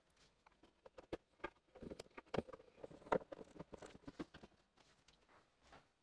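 Quiet handling noises as a four-bay Synology NAS enclosure is set down on a wooden shelf and moved into place: a few sharp clicks and soft knocks with rustling between them, fading out near the end.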